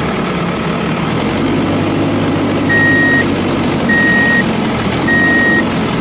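Vehicle engine running steadily while a reversing alarm beeps three times, about a second apart, starting about three seconds in.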